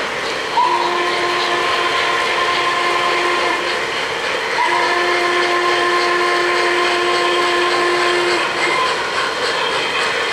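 Sound-equipped O-gauge model steam locomotive blowing its whistle in two long blasts, the second a little longer, each a chord of several tones. The train's running noise goes on underneath with a faint regular clicking.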